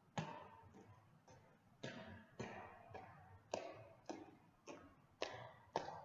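Two-footed jumps in sneakers landing on a hard floor, a dull thud about twice a second, each with a short echo.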